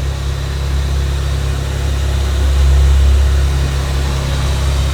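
Jeep Wrangler engine idling steadily as a low drone, with an even hiss over it.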